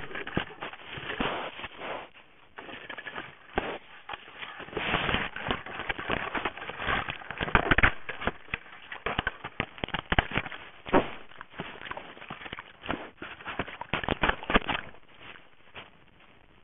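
Trail camera knocked about and scraped at close range, heard through its own microphone: irregular scraping, rustling and sharp knocks and clicks against the housing, loudest in the middle and dying down near the end.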